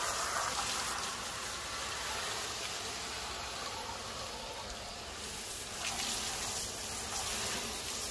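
Garden hose spray nozzle spraying water over a metal fish-cleaning table and a blue catfish carcass: a steady hissing spray.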